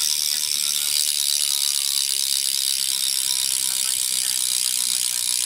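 Eastern cassette rear hub on a BMX bike freewheeling as the back wheel spins, its pawls ratcheting in a loud, steady buzz of very fast clicks that cuts off suddenly at the end.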